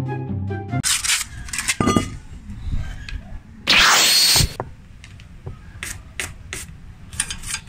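Background music cuts off about a second in. Then come brief scraping and rubbing strokes from hand-cleaning a rear drum-brake drum, a loud hiss lasting under a second about four seconds in, and scattered light clicks near the end.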